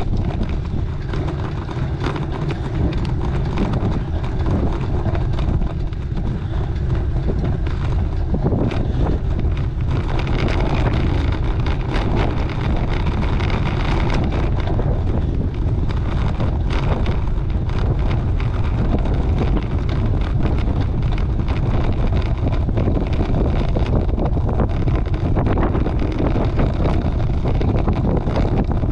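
Wind buffeting the microphone of a camera riding on a bicycle climbing slowly, a steady low rumble with a few faint knocks from the rough road surface.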